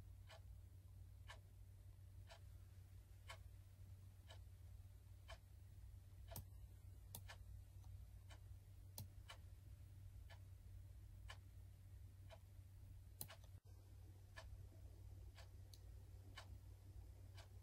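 Near silence: faint, even ticking about once a second over a low steady hum, with a few stray clicks in between.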